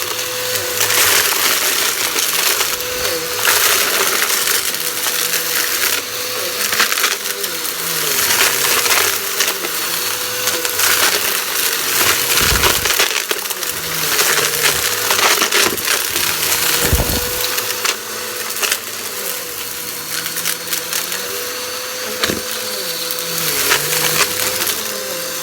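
Vacuum cleaner running with a steady motor whine while it sucks up crunchy debris, which crackles and rattles as it is drawn in.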